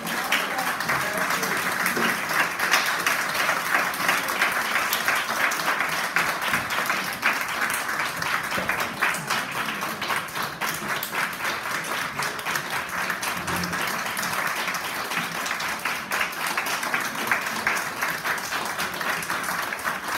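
A large audience applauding, dense continuous clapping from many hands that breaks out all at once and keeps going at a steady level.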